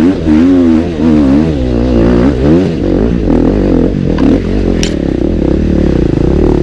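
Motorcycle engine revving, its pitch rising and falling several times over the first couple of seconds, then holding a steadier note.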